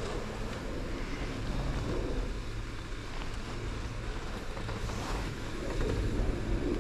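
Chairlift terminal machinery running, a steady low hum and rumble, with wind buffeting the microphone.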